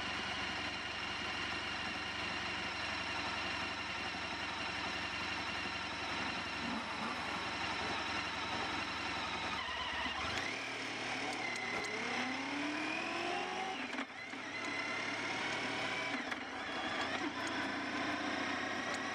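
Honda ST1300 Pan European's V4 engine running steadily at idle, then the motorcycle pulls away about ten seconds in. The engine note rises as it accelerates, drops at a gear change and climbs again.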